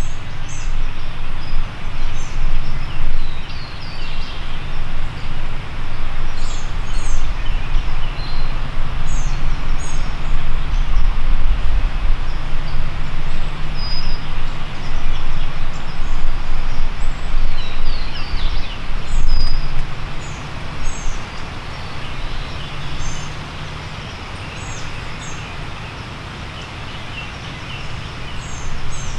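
Wind buffeting the microphone in a low, uneven rumble that eases a little near the end, with songbirds chirping in short high notes throughout.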